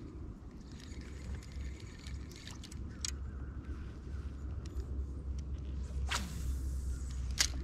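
Spinning reel being cranked and the rod handled, with a few sharp clicks, the clearest about three seconds in, again about six seconds in and near the end, over a low steady rumble.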